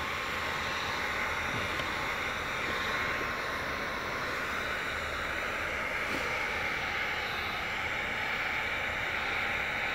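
Handheld Wagner heat gun running steadily, a constant rush of blown air with a faint steady whine, as it heat-shrinks window tint film onto a car's rear glass.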